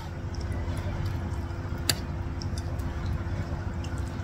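Metal spoon working in a ceramic soup bowl, with small clicks and one sharp clink about two seconds in, over a steady low hum.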